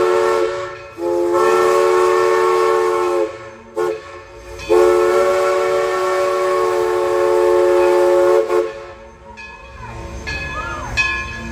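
Steam locomotive #16's chime whistle blowing: the tail of one blast, a long blast, a short toot, then a longer blast of about four seconds. It sounds several tones at once as a chord.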